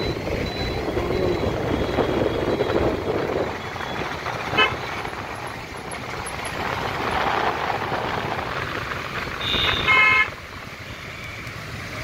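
Road traffic passing on the barrage roadway, a steady rumble of motorcycles and cars. A brief horn toot sounds about halfway through, and a louder vehicle horn blast comes a couple of seconds before the end.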